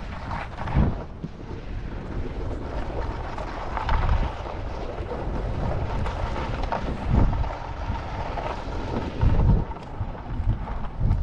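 Wind buffeting the camera microphone in gusty low rumbles as the skier moves fast, over a steady hiss of skis sliding on hard-packed snow.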